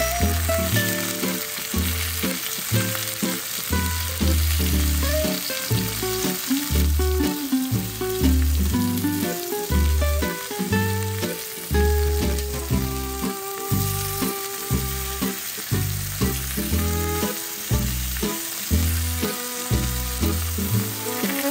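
Chicken breasts, chopped shallots and garlic sizzling in a nonstick frying pan as they are stirred with tongs, over background music with a steady bass beat.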